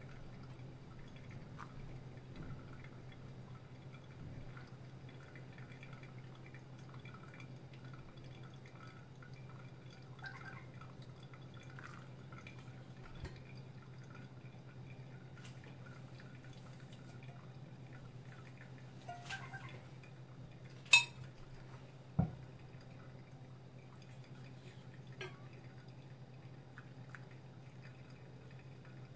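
Coffee dripping through a HARIO V60 stainless-steel cone dripper: faint drips over a steady low hum. About two-thirds of the way through come a sharp clink and, a second later, a duller knock.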